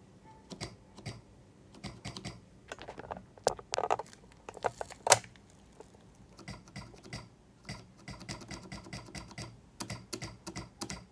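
Keys of a Logitech G810 keyboard with Romer-G switches pressed one by one to test the repaired switches. Separate irregular clicks come first, then a quicker run of presses from about six seconds in.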